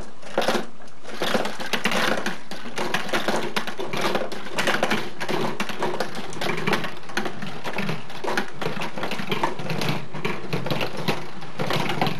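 Glass marbles rolling and clattering through a paper-and-cardboard marble run: a dense, fast stream of light clicks and rattles.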